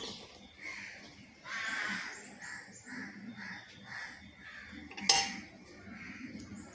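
Stainless-steel bowls being handled on a table, with one sharp metal clink about five seconds in, the loudest sound here. Short, faint calls repeat in the background.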